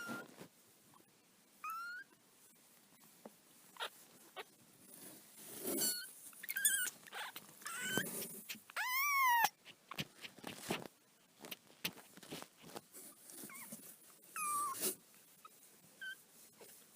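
Newborn kitten crying: a series of short, high-pitched mews, with a longer rising-and-falling call about nine seconds in. Light clicks and rustling sound between the calls.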